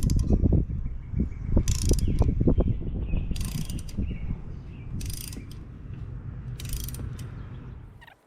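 A ratchet driving a thread-cutting tap into a stripped spark plug hole in a mower's cylinder head, to cut threads for a Helicoil insert. It goes in repeated strokes, with a quick run of pawl clicks about every second and a half to two seconds, over the low scrape and rumble of the work.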